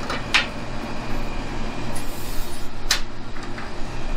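Two sharp clicks of aluminum angle brackets being handled against an aluminum radiator frame, about half a second in and again near three seconds, with a few fainter ticks, over a steady low hum of background noise.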